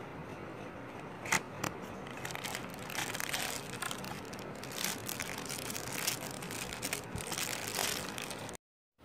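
Handling of cosmetic packaging: two sharp clicks about a second and a half in, then light crinkling and rustling that stops abruptly near the end.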